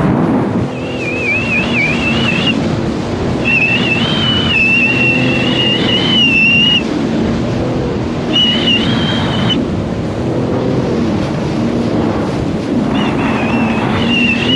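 Sea-Doo GTR 230 personal watercraft under way, its supercharged three-cylinder Rotax engine running at a changing speed, with a high, wavering whine that comes and goes four times. Water rushing and wind on the microphone run underneath.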